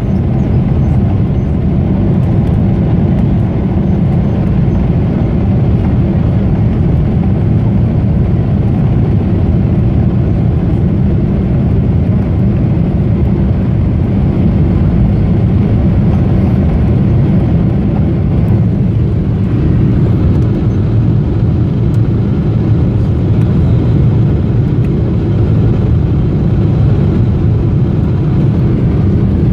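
Boeing 777-300's turbofan engines at takeoff thrust heard inside the cabin from a seat beside the wing: a loud, steady low roar with rushing air as the airliner lifts off and climbs. The higher hiss thins a little about two-thirds of the way through.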